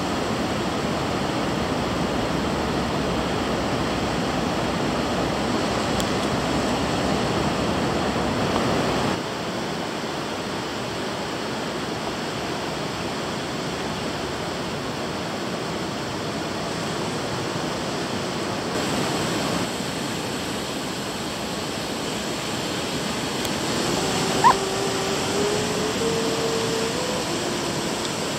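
Ocean surf breaking on a sandy beach: a steady wash of waves, stepping down in level about nine seconds in. Near the end a sharp click and a short, faint wavering tone sound over the surf.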